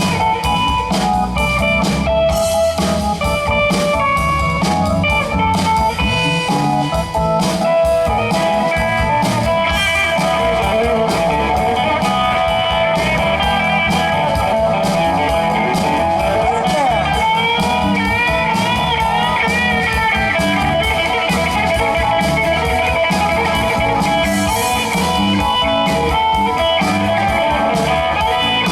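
Live blues-rock band playing an instrumental passage: electric guitar solo with bending notes over bass and drums.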